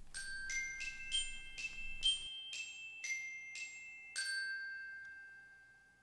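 Short end-screen jingle of bright, bell-like mallet notes, glockenspiel-like, struck about twice a second; the last note, about four seconds in, rings on and fades away.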